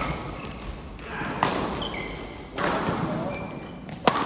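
Three sharp knocks from hits or bounces during play in a doubles game: one at the start, one about a second and a half in, and one near the end. People's voices chatter throughout.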